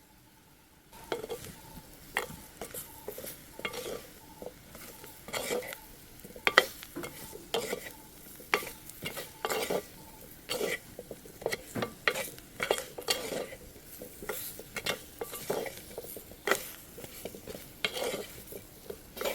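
Spoon stirring ambarella pieces and spices frying in oil in a pan, scraping and clinking against the pan in irregular strokes over a steady sizzle. The stirring starts about a second in.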